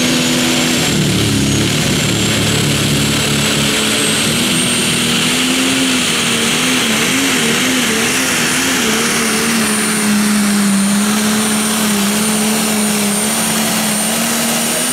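John Deere Pro Stock pulling tractor's turbocharged diesel engine at full throttle under the load of the sled. A steady deep drone carries a high turbo whistle that climbs over the first few seconds and then holds. The engine note wavers briefly around the middle of the pull.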